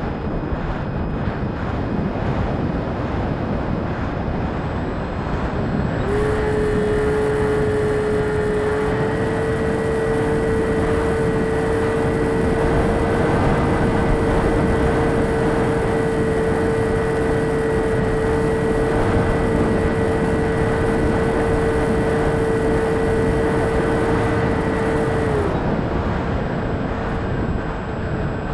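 Radio-controlled model airplane in flight, heard from its onboard camera: a steady rush of wind over the microphone. About six seconds in, the motor's whine comes in at one steady pitch, steps up slightly shortly after, and cuts off a few seconds before the end.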